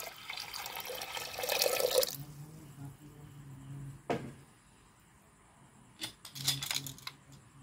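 Water pouring into a pressure cooker over soaked chana dal and potato chunks for about two seconds, then settling quietly, with a single click about four seconds in.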